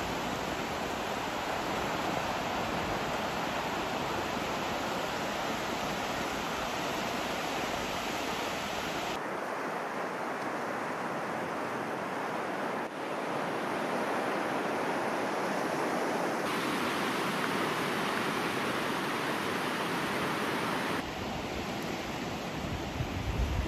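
Sea surf washing and breaking on a sandy shore: a steady rush of waves, changing character abruptly three times. Near the end, wind buffets the microphone with low rumbling gusts.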